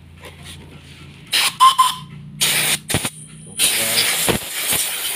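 Compressed-air blow gun fired in three hissing blasts, the last the longest, with a brief high whistle just before it. The air is blowing dirt off the engine parts before the valve cover is fitted.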